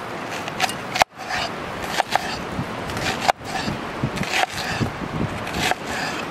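Irregular close-up clicks, scrapes and rustles of things being handled, broken by two abrupt cuts about a second in and just past three seconds.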